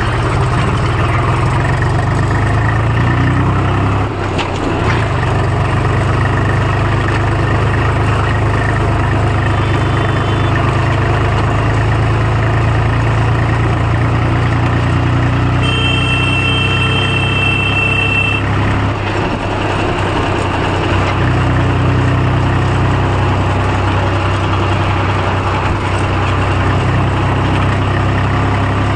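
Tractor's diesel engine running steadily while the tractor is driven along a dirt road. A high, steady tone sounds for a couple of seconds around the middle.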